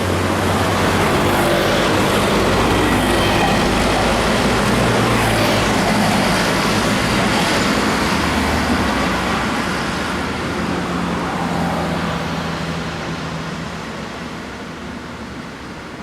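Heavy road vehicles passing close by, with a low engine drone over tyre and road noise that fades away over the last several seconds.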